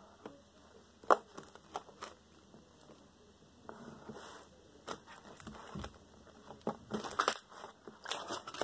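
Fluffy slime being stretched and kneaded by hand: scattered sticky clicks and pops, with a soft rustle as it is pulled up, growing into denser crackling near the end.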